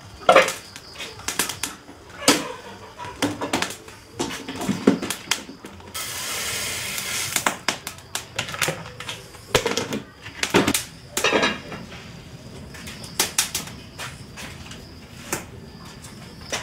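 Irregular knocks and clatter of objects being handled, with a rushing noise lasting about a second and a half around six seconds in.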